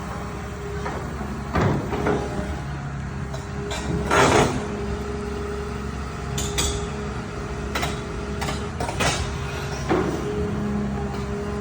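Excavator's diesel engine running steadily, with irregular metallic clanks and knocks from the machine, the loudest about four seconds in.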